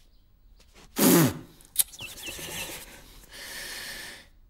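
Mr Bean's wordless vocal noises: a loud, breathy huff about a second in whose pitch drops steeply, followed by a sharp click, a few quick high chirps and about a second of steady hiss.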